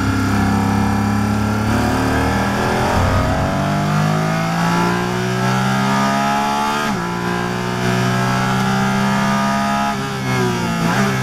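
Porsche Cayman GT4 RS Clubsport's naturally aspirated flat-six heard from inside the cockpit, revving hard and climbing in pitch through fourth gear to about 8,000 rpm. About seven seconds in it shifts up to fifth with a sudden drop in pitch and climbs again, and near the end the revs fall as it slows.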